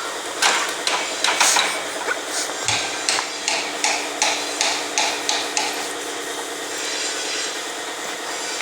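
Hammer blows on metal, about three a second, stopping about two-thirds of the way through, over a steady mechanical hum.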